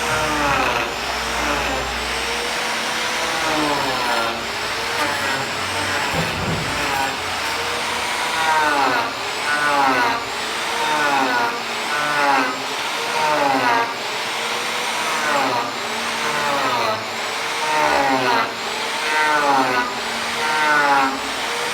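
Electric power tool motor running, its whine rising and falling in pitch about once a second as it works into the wood.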